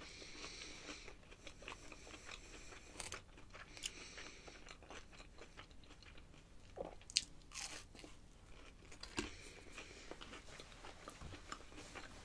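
Breaded chicken strip being bitten and chewed: faint crunching with scattered crisp clicks, the sharpest about seven seconds in.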